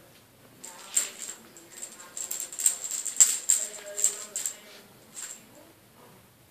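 Metallic jingling and rattling, shaken in irregular quick bursts with a bright ringing edge. It starts about a second in, is busiest and loudest around the middle, and stops a little after five seconds.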